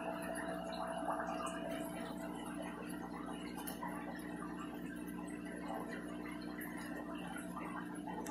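Aquarium filtration running steadily: water bubbling and trickling over a steady hum, with a few faint ticks.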